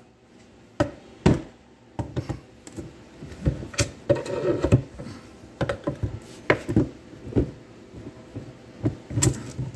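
Steel mainshaft and its gears of a Tremec TR3550 transmission knocking and clinking against the case and the countershaft gears as the shaft is lowered and settled into place: a run of irregular metallic clunks and taps, some ringing briefly.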